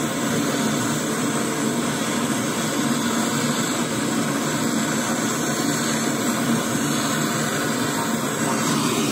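Brazing torch flame burning with a steady hiss as a crack in the copper compressor discharge line of a split AC outdoor unit is brazed to stop a refrigerant leak.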